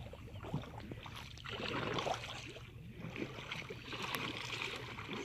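Kayak paddle strokes in shallow lake water: the blade dipping and pulling, with splashing and gurgling that swells with each stroke as the kayak moves off.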